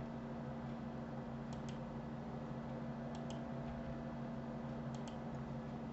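Three pairs of quiet computer-mouse clicks, a couple of seconds apart, over a steady low electrical hum.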